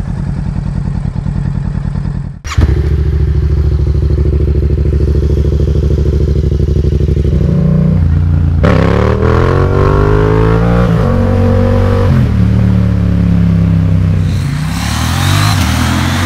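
A Kawasaki Ninja 650 parallel twin runs steadily for a couple of seconds, then cuts to a Yamaha 689 cc 270° crossplane parallel twin being ridden hard. Its pitch climbs and falls with throttle and gear changes, and near the end the bike passes by.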